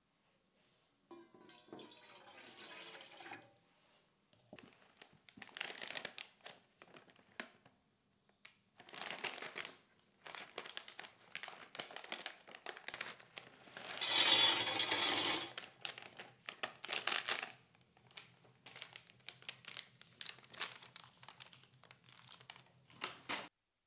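Plastic pasta packet crinkling and tearing as it is handled, opened and emptied into a steel saucepan, in many short bursts with the loudest stretch of about two seconds in the middle. A faint low steady hum runs under the second half.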